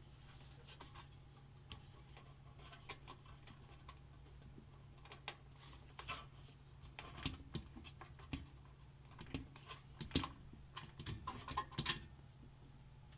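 Faint irregular clicks, taps and scrapes of small metal parts as motherboard standoffs are threaded by hand into a PC case panel, busier in the second half, over a low steady hum.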